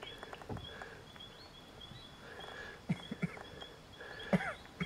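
Birds calling in the background: a short high note repeated two or three times a second, with longer, lower calls now and then and a louder falling call about four seconds in. A few soft low knocks or splashes from the water are mixed in.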